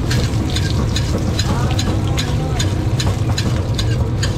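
Busy street-food stall noise: a steady low hum with rapid sharp clicks and clinks over it, about four or five a second, and faint voices in the background.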